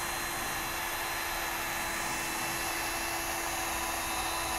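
Cordless drill spinning a Velcro-backed sanding disc against a wet plastic headlight lens, wet-sanding off the yellowed, faded surface. The motor runs at one steady speed, a continuous whine over sanding noise.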